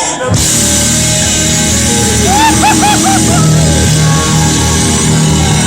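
Live electric blues-rock band kicking in loud, with drums, bass and electric guitar. About two and a half seconds in, the guitar plays a run of four quick bent notes.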